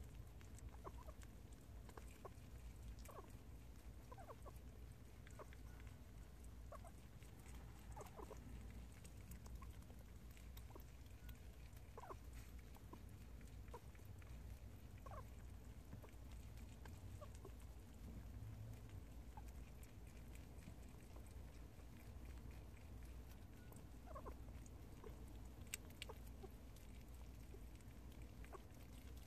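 Prairie dog eating a homemade treat held in its paws, making faint, scattered little chewing sounds and small noises as it eats, over a low steady hum.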